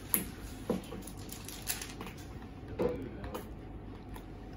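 Hands tapping, pushing and scuffing on giant hollow plastic toy eggs: a few scattered light knocks and rubs.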